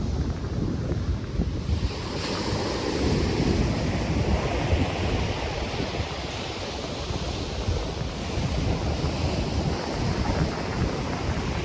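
Ocean surf washing onto the beach, with wind in the palm trees and wind buffeting the microphone in a low rumble. A louder wash of hiss sets in about two seconds in.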